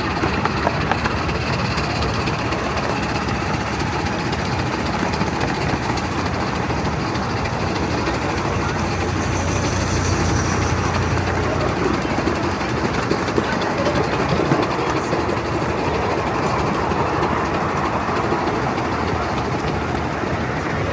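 7¼ inch gauge miniature steam train on the move: steady running noise of the wheels on the track and the locomotive working, with no breaks.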